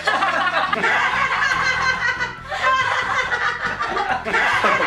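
Laughter over background music.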